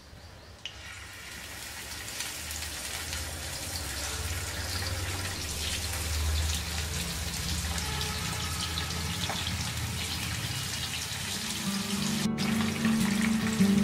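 Pabda fish sizzling as they fry in hot mustard oil in a frying pan, the sizzle growing steadily louder as more fish go in. Background music comes in near the end.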